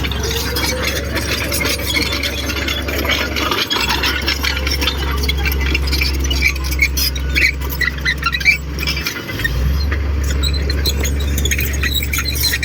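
Komatsu D58 crawler bulldozer working: its diesel engine runs with a steady low drone, broken very briefly twice, under high squealing and clinking from the steel tracks and running gear.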